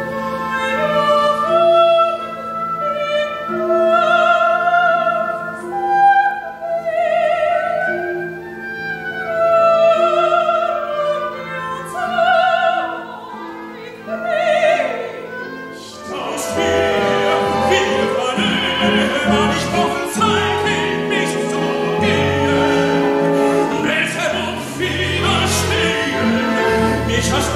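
Operatic soprano singing a slow line with wide vibrato over held low orchestral notes. About sixteen seconds in, a denser, busier orchestral passage takes over.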